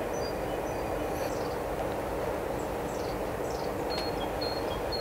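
Steady, even outdoor rumble with a faint continuous hum, and short faint high chirps scattered through it.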